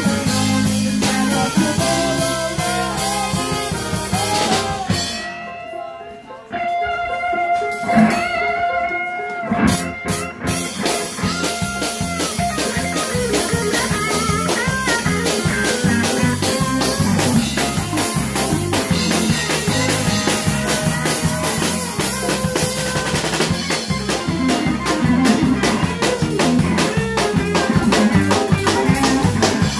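Live band of saxophones and trumpet playing over a drum kit. About five seconds in the band thins out to a few held notes, then the full band with drums comes back in at about ten seconds and plays on.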